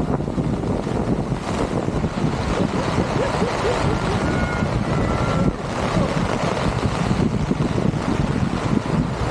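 Strong wind gusting hard against the microphone, a loud rough rush that dips briefly about five and a half seconds in.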